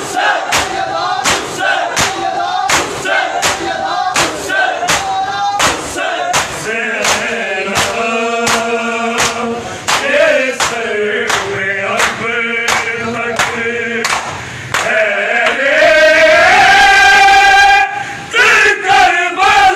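A crowd of mourners beating their chests in unison (matam), sharp slaps about two a second, under a men's chanted lament. After about eight seconds the slaps give way to drawn-out chanted notes, with one loud held note near the end, and a few slaps return just before the end.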